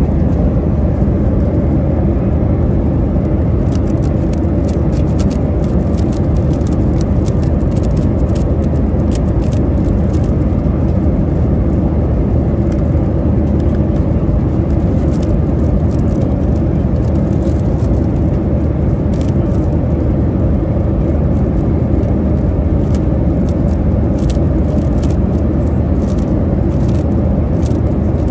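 Steady, loud airliner cabin drone in flight, with quick runs of sharp plastic clicks from a speedcube being turned by hand from a few seconds in.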